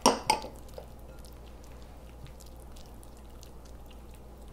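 Silicone spatula stirring a mayonnaise, pesto and diced onion mixture in a glass bowl: soft wet squishing with faint ticks of the spatula against the glass, after two sharper knocks right at the start.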